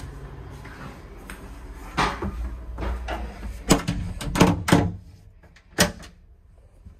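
A train washroom door in a Superliner sleeper car being opened and shut, giving several sharp clacks of the door and its latch. The train's running rumble drops away once the door closes, about five seconds in.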